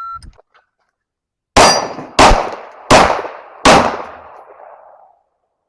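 A short electronic shot-timer start beep, then four rapid 9mm pistol shots from a compensated Springfield Echelon, about 0.7 s apart. Each shot leaves a ringing tail, and the last one fades away by about five seconds in.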